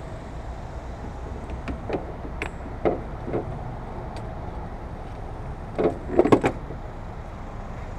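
Scattered light knocks and clicks of tools and parts being handled on a car, with a quick run of louder knocks about six seconds in, over a steady low rumble.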